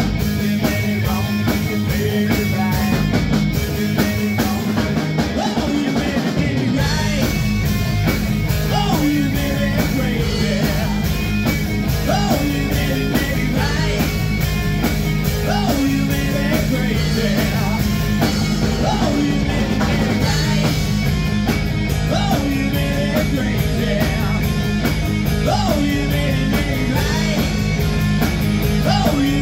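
Live rock band playing: electric guitars, bass guitar and drum kit, with a man singing. The low end fills out heavily about seven seconds in.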